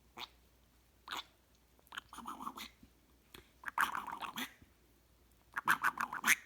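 Indian ringneck parrot making two short clicks, then three bursts of rapid, gurgling chatter, each under a second long.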